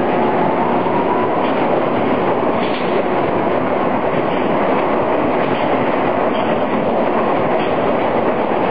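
Towing-tank carriage running along its rails while it tows a rowing shell through the water for a drag measurement: a steady, loud running noise with a few faint clicks.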